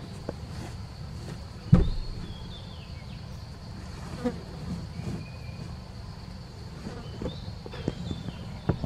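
Insects making a steady high-pitched drone over a low hum, with one sharp knock about two seconds in and a few faint short chirps.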